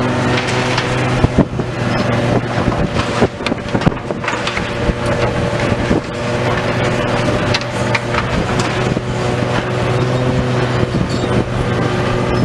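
Heavy demolition machine's engine running steadily, with scattered sharp knocks and cracks of breaking debris throughout.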